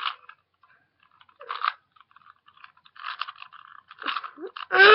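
Plastic 3x3 Rubik's cube being twisted by hand: short bursts of clicking and rattling as the layers turn, in several separate spurts.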